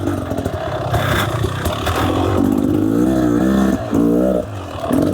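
Beta Xtrainer 300 two-stroke dirt bike engine running, revved up and back down twice, about three and four seconds in.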